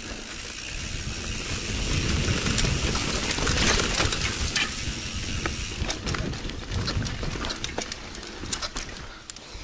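Mountain bike rolling down a dirt trail: rumble of tyres over the ground and wind hiss, with mechanical rattling and a run of sharp clicks in the second half that the rider puts down to a broken spoke.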